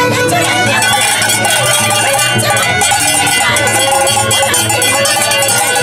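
Festive procession din: traditional music with many held, bell-like ringing tones over the chatter of a crowd.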